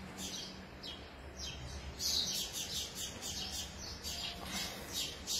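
Birds chirping in quick, high, repeated chirps that grow denser and louder about two seconds in.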